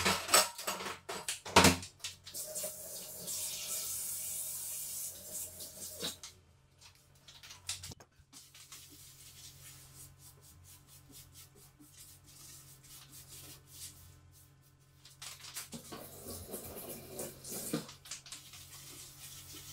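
Washing up at a kitchen sink: a few sharp knocks, then a tap running for about four seconds, followed by quieter handling of dishes and a burst of clatter near the end.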